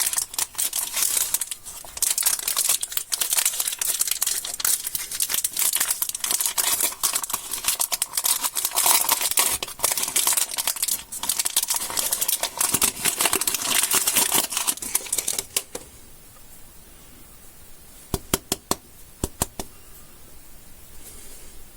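Plastic candy wrappers crinkling and being torn open in a dense run of crackling for about fifteen seconds. After that it goes quiet except for a handful of sharp clicks or taps.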